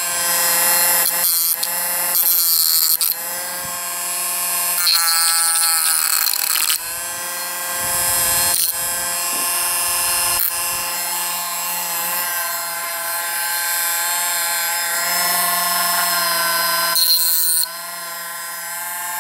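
Dremel rotary tool running with a small grinding wheel, a steady high motor whine with bursts of grinding hiss as the wheel is pressed against the edges of a freshly cut opening in a metal vape mod case to take off the rough burrs.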